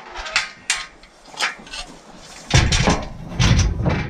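A folding metal motorcycle loading ramp being handled: a few light clanks and rattles, then heavier metal thumps and clatter from about halfway through as it is moved against the truck's tailgate.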